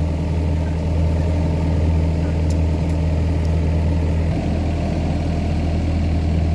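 Diesel engine of an excavator running steadily close by, a constant low drone that shifts slightly in note about two-thirds of the way through.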